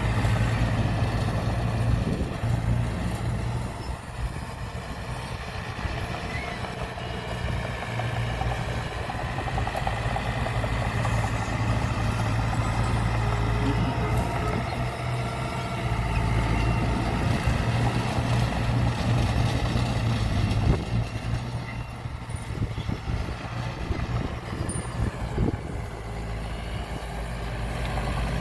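Heavy diesel engine of earthmoving machinery running steadily, a low drone that holds at much the same level throughout with slight dips and rises.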